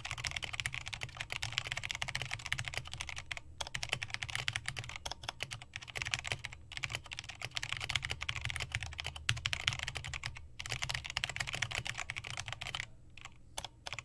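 Fast typing on a custom 60% mechanical keyboard with black linear switches and pudding keycaps: a dense, rapid clatter of keystrokes, broken by brief pauses three times and thinning out near the end.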